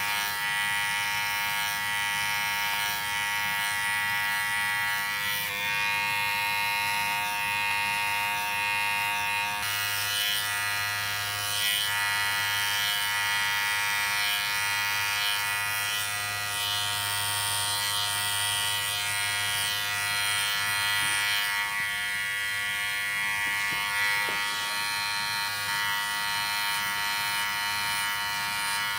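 Electric hair clippers running with a steady, continuous buzz.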